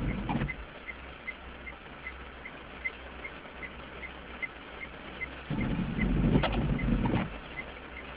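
Car windscreen wipers on an intermittent setting, heard from inside the cabin: the end of one sweep at the very start, then a full sweep and return over the wet glass about five and a half seconds in. Each sweep is a low swish with sharp clicks where the blade turns. Between sweeps, rain patters lightly on the car, with a faint ticking about three times a second.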